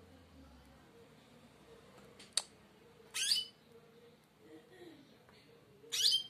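Nestling finches giving two short, shrill begging calls while being hand-fed with a syringe, about three seconds in and again near the end, with a sharp click just before the first.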